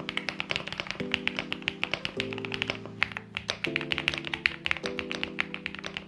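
Fast, continuous typing on an Epomaker Galaxy68 mechanical keyboard with stock, unlubed Epomaker Wisteria linear switches, a gasket mount, a polycarbonate plate and PBT keycaps: a dense run of sharp key clicks, about eight to ten a second. Background music with sustained chords that change about once a second plays under the typing.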